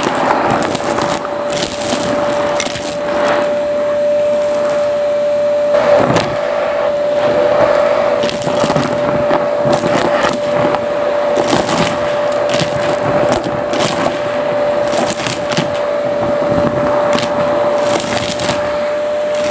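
Vacuum cleaner running with a steady whine while its nozzle sucks up lint and small hard debris from carpet; the bits rattle and crackle up the hose wand in a continuous clatter of clicks.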